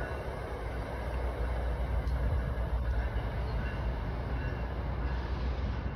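Commuter passenger train running away down the track, a steady low rumble of the train on the rails.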